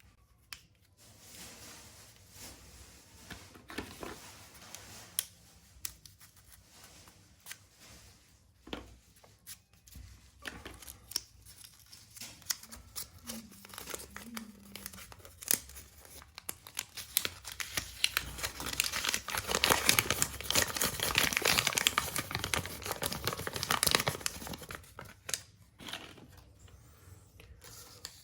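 Plastic snack packets crinkling and being opened, with scattered crackles and rustles; a long, louder burst of dense crinkling comes about two-thirds of the way through.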